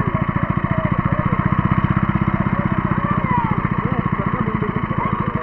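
A small engine running steadily with a fast, even thumping.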